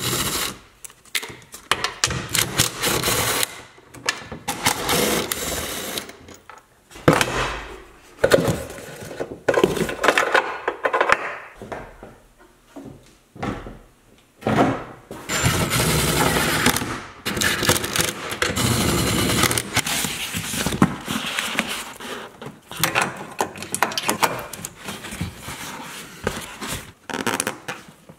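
Irregular clatter and handling noise of hand tools and parts on a pickup truck door: a socket wrench working the tow mirror's mounting nuts, then the mirror, plastic trim and wiring connectors being moved and fitted, in uneven bursts with short pauses.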